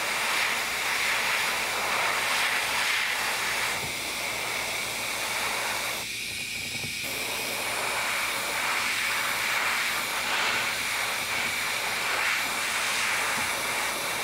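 Airbrush spraying with a steady hiss as paint is misted onto a small figurine; the hiss thins briefly about six seconds in.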